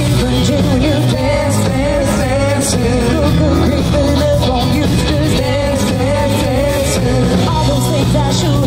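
A live rock band playing loudly through a PA: a female lead singer over electric guitars, keyboard, bass and drums, with no break in the music.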